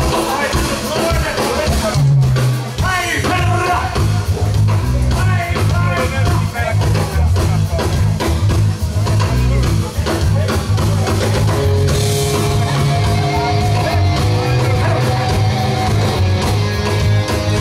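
Live rock band playing loudly: electric bass and drum kit under a voice, and from about twelve seconds in, sustained guitar chords and cymbals fill out the sound.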